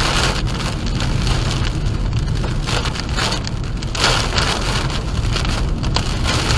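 Heavy rain hitting a moving car, a steady rush with uneven patter, over the low rumble of the car driving on the road.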